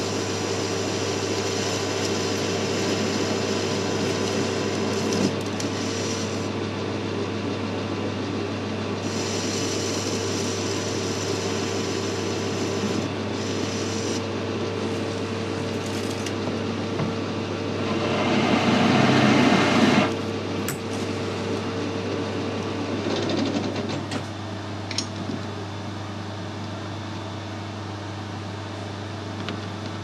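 Metal lathe running with a steady motor hum while a tool cuts a spinning metal part, the cutting noise coming and going in spells. About two-thirds of the way through comes a louder, harsher stretch of cutting as the chamfer tool is fed in. After that the cutting stops and the quieter hum carries on.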